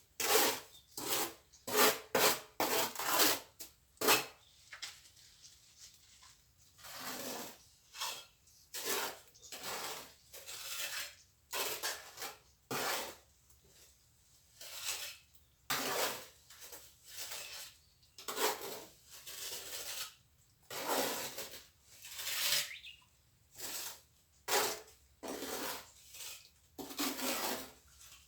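Steel plastering trowel scraping and spreading cement mortar in short strokes, quick at first and then about one a second.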